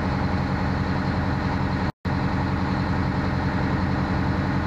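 Fire engine's engine idling steadily. About two seconds in, the sound cuts out completely for a split second.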